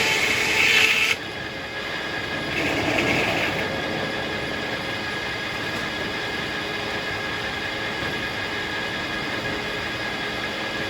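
Circular sawmill running. A louder, harsher sawing noise cuts off about a second in and a shorter louder spell comes around three seconds. After that the mill runs steadily with a constant high whine.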